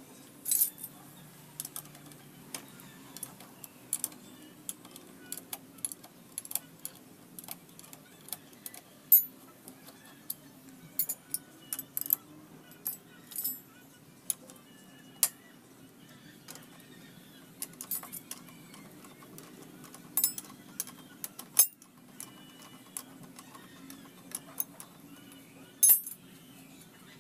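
A metal wrench clinking and ticking against a motorcycle's 14 mm rear shock bolt as the bolt is loosened, in sharp irregular clicks, sometimes in quick clusters.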